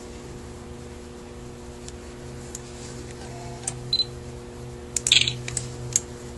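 Light clicks and taps of small metal carburetor parts being handled on the bench: a few scattered in the first four seconds, then a short clatter about five seconds in, over a steady low hum.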